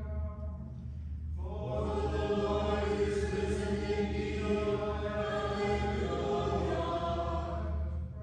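Liturgical chant: a single voice intoning briefly, then from about a second in a congregation singing a sustained plainsong response in unison, held for several seconds before fading out near the end.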